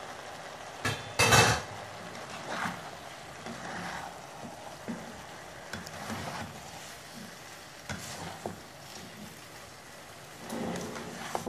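Pasta being stirred and turned in a non-stick pan with a slotted spatula, with scraping and scattered knocks of the spatula against the pan over a faint steady sizzle. The loudest is a clatter about a second in.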